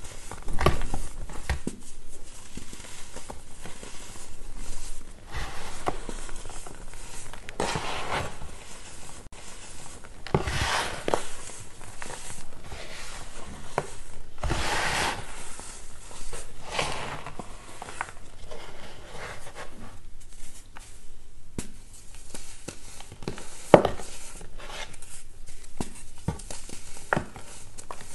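Chunks of reformed baking soda crunching and crumbling as they are squeezed and broken by hand, in a series of irregular crunchy bursts with loose powder sifting between them and an occasional sharp snap.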